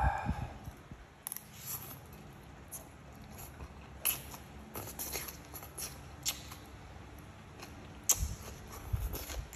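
Close-up eating sounds: a person biting and chewing a mouthful of stir-fried greens and fried egg, with scattered small sharp clicks and smacks, and a few low thumps near the start and near the end.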